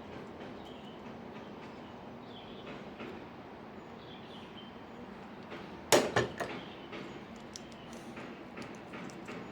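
A sudden clatter of a few quick, sharp knocks about six seconds in, followed by scattered light clicks and ticks, over a low steady background noise.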